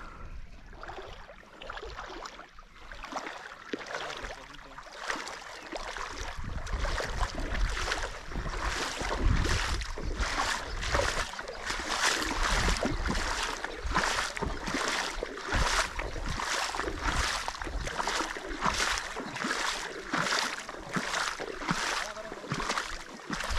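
Footsteps wading through ankle-deep river water, splashing at a steady walking pace of about three steps every two seconds, starting a few seconds in over the running water.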